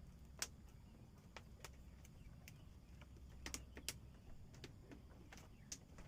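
Near silence with scattered light clicks at irregular intervals, about ten of them, a couple in quick pairs, over a faint low rumble.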